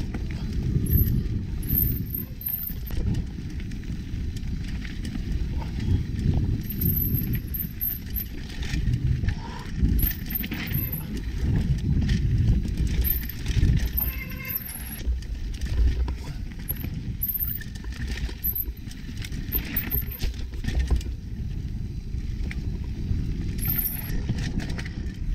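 Mountain bike ridden along dirt singletrack, heard from a helmet or bike-mounted action camera: an uneven low rumble of tyres and wind on the microphone, with scattered knocks and rattles from the bike going over bumps.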